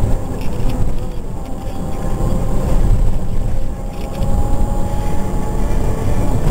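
Steady low rumble of a moving car's engine and tyre noise, heard from inside the car.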